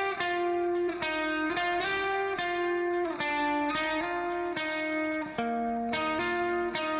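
Background music: a steady melody of plucked notes, a new note about every half second.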